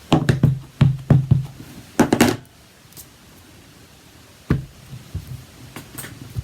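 A rubber stamp tapped several times in quick succession onto an ink pad, then a few more taps and a single firmer knock on the desk about four and a half seconds in.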